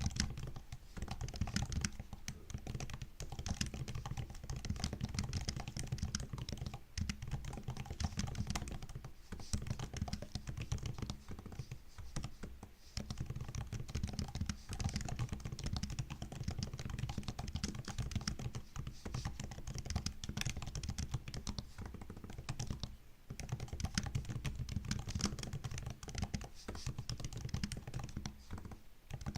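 Fast, continuous typing on a MacBook laptop keyboard: a dense run of light key clicks with a few short pauses between bursts.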